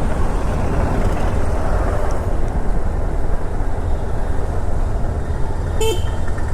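Steady wind rush and road noise on a motorcycle-mounted action camera while a Honda CB200X is ridden through traffic. A short, high beep sounds once near the end.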